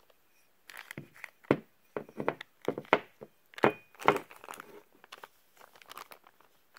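Clear plastic bags crinkling and rustling as machined metal parts are picked up and handled, with a few sharp knocks of the parts. The sounds come in irregular bursts for the first few seconds, then die down.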